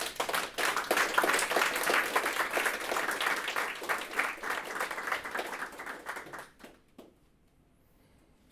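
Audience applauding: many hands clapping for about six seconds, thinning out and ending with a couple of last claps.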